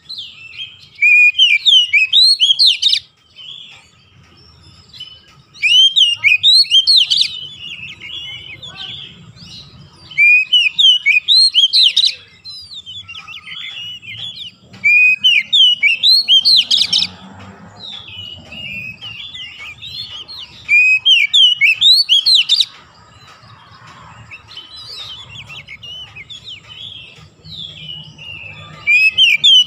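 Oriental magpie-robin singing: loud phrases of about two seconds of quick rising whistled notes, repeated about every five seconds, with softer twittering in between.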